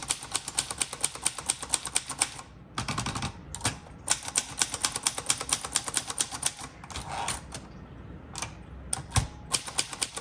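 1961 Royal Forward portable typewriter being typed on quickly: fast runs of keystrokes, several a second, broken by short pauses, with a heavier thump about nine seconds in. It types smoothly and keeps up with fast typing.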